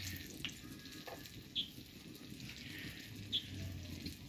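Bolinho de chuva batter frying in hot oil, a faint steady bubbling sizzle, with a few light clicks of spoons against the pan.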